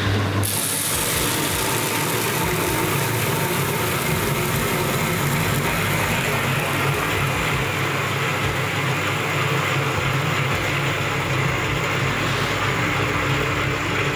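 Electric motor-driven roller grain mill, rollers set to a 1.1 mm gap, crushing malted barley as grain pours into its steel hopper. The motor hums, and about half a second in a loud, steady crushing noise from the grain going through the rollers joins it.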